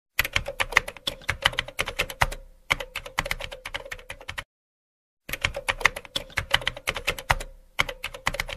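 Typing sound effect: rapid keystroke clicks, about six a second, in runs broken by short pauses, with a silent gap of nearly a second midway.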